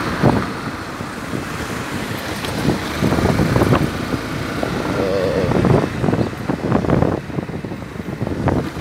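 Yamaha Factor 150 single-cylinder motorcycle riding at moderate speed in traffic. Its engine and road noise sound under irregular gusts of wind buffeting the helmet microphone.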